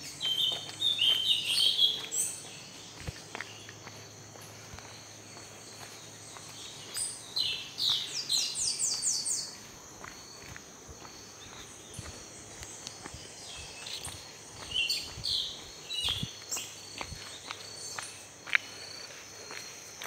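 Wild birds calling in the forest: chirpy calls near the start, a fast trill of quick repeated notes around the middle, and more calls later. Under them a steady high drone of crickets, with faint footsteps on the trail.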